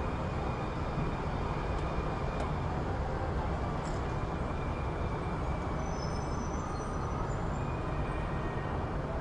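City street ambience: a steady, low rumble of traffic, with a few faint ticks and brief faint high tones over it.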